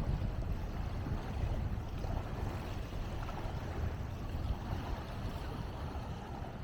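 Lake waves washing and splashing along the shore, with wind rumbling on the microphone.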